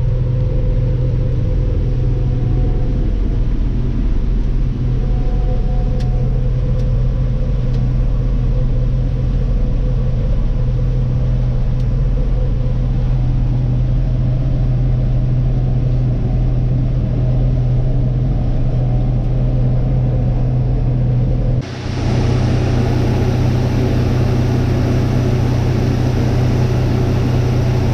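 A vehicle engine runs with a steady low rumble, heard from inside the cab. About 22 s in it changes abruptly to a similar rumble with more road hiss.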